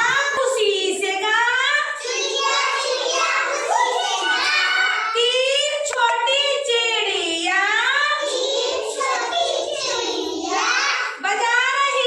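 Children singing a Hindi nursery rhyme in a high, sing-song chant that runs on without a break.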